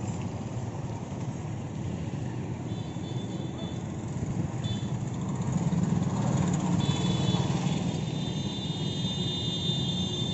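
Street ambience: a steady rumble of road traffic that swells about six seconds in, with faint high steady tones over it partway through.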